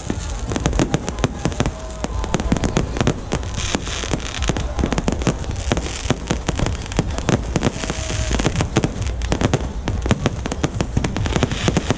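Fireworks going off in a dense, continuous barrage of overlapping bangs and crackles, with hissing bursts now and then.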